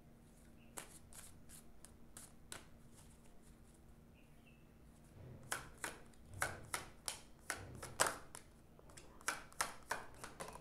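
Tarot cards being shuffled by hand: light, sharp card slaps, a few faint ones at first, then a quicker and louder run from about halfway through.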